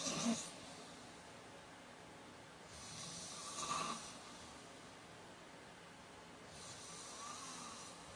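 A heavy-set man snoring in his sleep, one snoring breath every three and a half seconds or so: one ending just after the start, a louder one about three and a half seconds in, and a softer one near the end.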